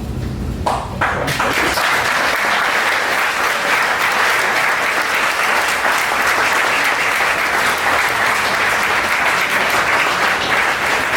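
Audience applauding: many hands clapping together. It swells about a second in and then holds steady.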